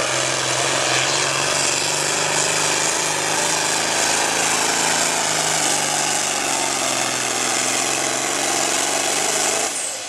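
John Deere pulling tractor's diesel engine at full throttle, dragging a weight-transfer sled under heavy load with black smoke pouring from the stack; loud and steady, its note sagging slightly in the second half, then dropping away abruptly near the end.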